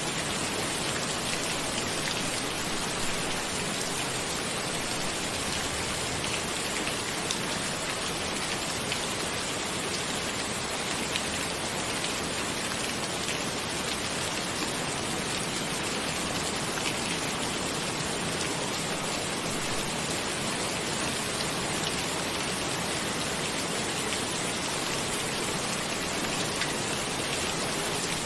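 Steady rain falling on a cabin: an even hiss with scattered drop ticks.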